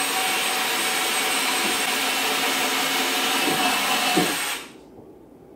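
Power drill running steadily as it bores a handle hole through a wooden drawer front, stopping sharply near the end.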